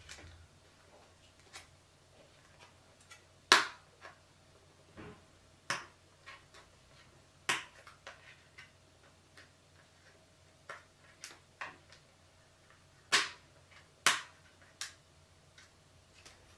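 Fingers picking at the tight plastic wrap on a small boxed stylus: scattered sharp clicks and crinkles at irregular intervals, a handful of them louder, with quiet between.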